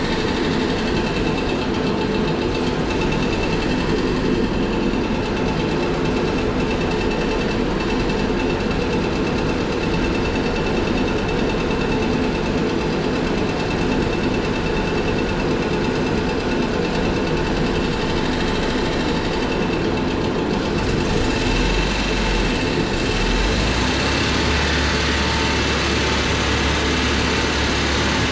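Honda D16 four-cylinder engine in an EK Civic idling steadily as it warms up, its low hum shifting slightly a little past twenty seconds in.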